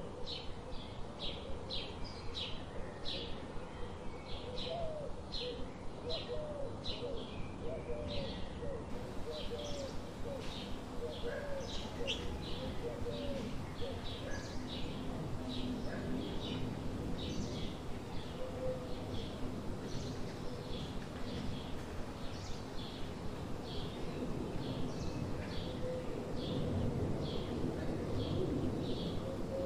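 Birds chirping: one short, high chirp repeated about twice a second, over a steady low background hiss. In the first third, lower wavering notes that may be cooing come in as well.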